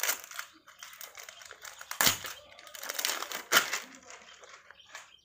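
Plastic wrapping crinkling as it is handled and pulled off a small boxed package. There are two louder crackles about two and three and a half seconds in.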